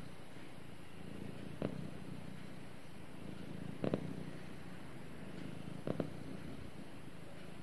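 Ginger tabby cat purring steadily while being stroked on the head, with a brief, sharper, louder sound roughly every two seconds, three times.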